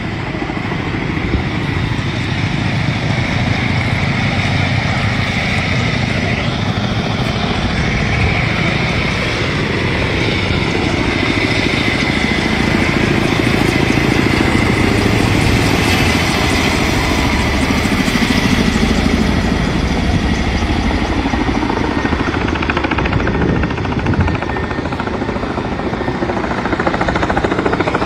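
Kamov Ka-32 coaxial-rotor firefighting helicopter hovering and flying close by, its rotors and turbines making a steady, loud noise.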